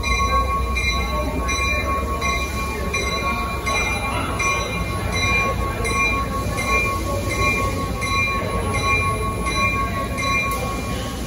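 NJ Transit commuter train rolling slowly into the terminal with a low rumble, its bell ringing about twice a second and stopping near the end.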